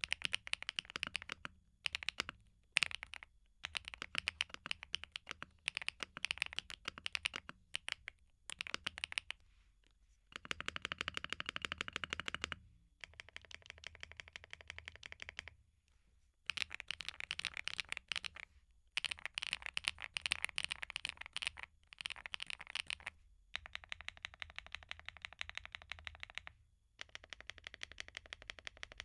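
Typing on a KeebMonkey x PMO P75 75% mechanical keyboard with PC keycaps: runs of quick keystroke clicks broken by short pauses, with one stretch of very rapid keystrokes partway through.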